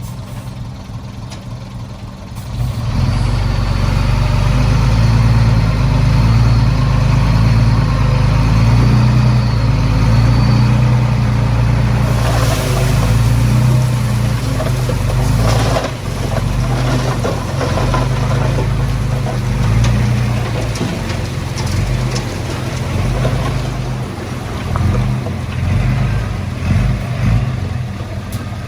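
Heavy diesel engine of earthmoving equipment running hard, getting louder about two and a half seconds in and holding a steady working drone, with a rougher rattling haze in the middle of the stretch.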